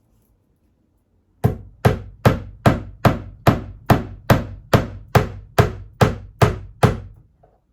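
Hammer driving a flat-head nail into a wall: about fourteen even, sharp strikes, roughly two and a half a second, starting about a second and a half in.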